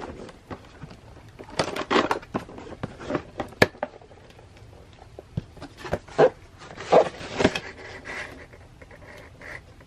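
Irregular rustling, scraping and handling noises from a boxed item being handled during an unboxing, with a sharp click about three and a half seconds in.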